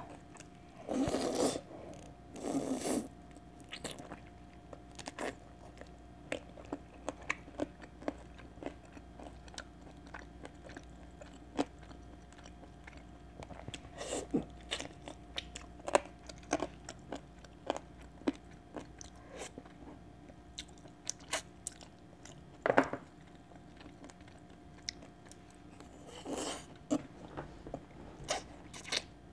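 Close-miked biting and chewing of a boiled chicken wing: many short clicks and smacks of the mouth, with a few longer, louder mouth noises about a second in, near the middle and near the end.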